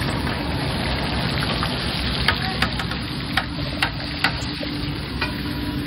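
Fish sizzling as it cooks: a steady hiss with several sharp pops and crackles through the middle.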